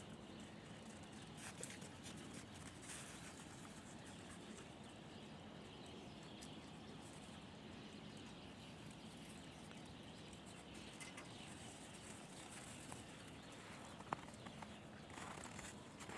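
Very quiet outdoor ambience with faint crunching of footsteps in packed snow, and a single sharp click about fourteen seconds in.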